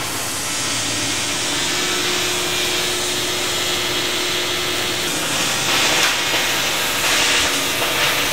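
A loud, steady hiss, strongest in the high range, that grows a little louder about five seconds in and cuts off suddenly.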